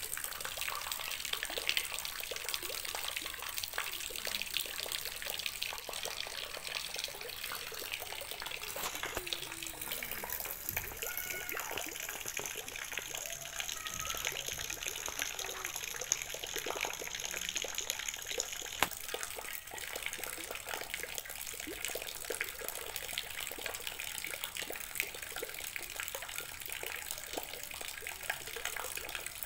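Rainwater falling from above into a plastic tub already full of water: continuous splashing made of many small drop impacts, steady throughout.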